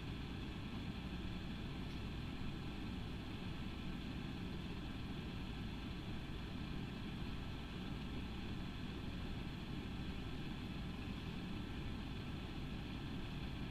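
A steady low hum with a faint hiss above it, with no distinct events.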